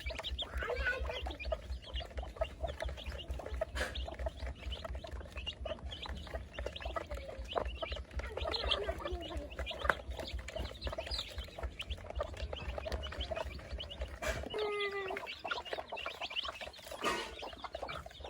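A flock of young chicks peeping and chirping, many short calls overlapping, with a few occasional clicks. A steady low hum runs beneath them and cuts off about fourteen seconds in.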